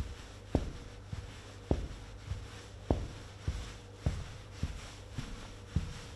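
Foley footsteps: shoes stepping in place on a wooden board, matched to a man walking, about two dull steps a second with every other step louder. A faint steady hum runs underneath.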